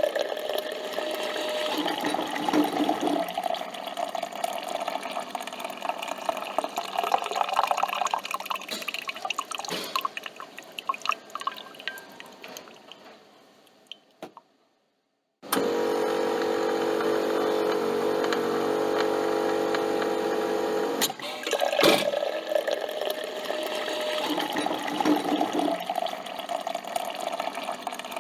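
Coffee machine brewing: coffee trickling and dripping into a cup, fading away about halfway through. After a moment of silence the machine's pump hums steadily for about five seconds, then a click, and the trickling and dripping starts again.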